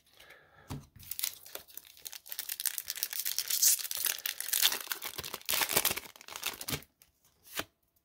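Crinkly foil wrapper of a Pokémon booster pack being torn open by hand: a dense, rapid crackling rip lasting several seconds, with a brief crinkle near the end.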